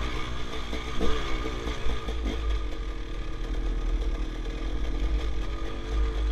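Enduro dirt bike engine running hard, revving up and down with the throttle while climbing a rough trail, heard from the rider's helmet camera. There are a couple of short knocks in the first two seconds.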